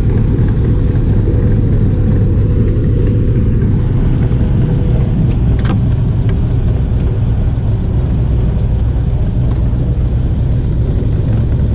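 An engine running steadily at constant speed, a low even drone with no change in pitch. A single sharp knock cuts through it about six seconds in.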